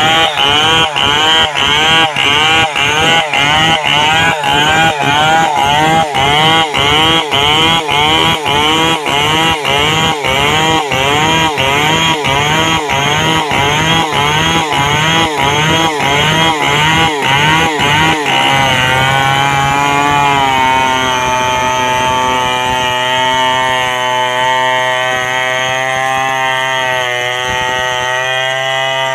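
Large two-stroke chainsaw running at high revs while ripping a log into planks. For most of the time its note surges and drops in a regular pulse, about two and a half times a second, as it loads up in the cut. About two-thirds of the way through, it settles into a steadier high-revving note.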